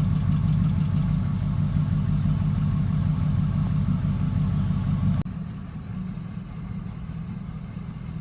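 Pickup truck engine idling steadily. About five seconds in, the sound cuts abruptly to a quieter, similar idle.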